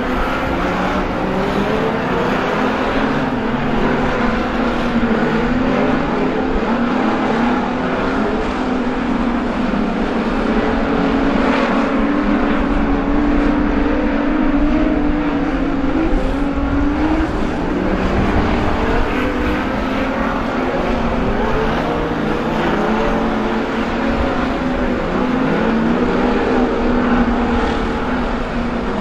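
Several street stock race cars running laps on a dirt oval, their engines overlapping in a continuous drone whose pitch rises and falls as they accelerate and lift off.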